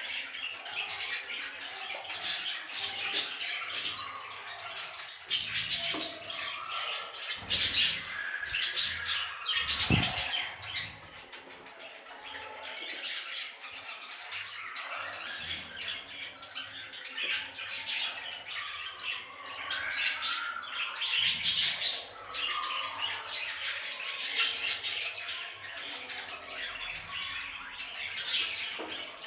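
Budgerigars chattering, with continuous overlapping chirps, warbles and squawks. A couple of low thumps come through at about eight and ten seconds in.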